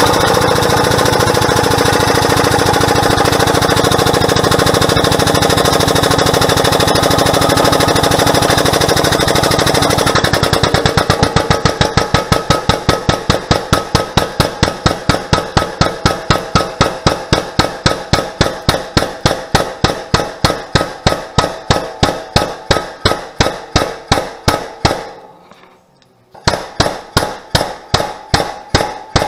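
Air-over-hydraulic pump on a shop press running fast and continuous, then from about ten seconds in pumping in distinct strokes that slow as the press loads up bending thick steel plate. It dies away and stops near the end, then starts pumping again.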